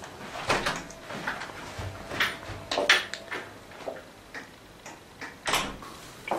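Footsteps and a wooden front door being opened and shut: a few irregular knocks and latch clicks, the loudest about three seconds in.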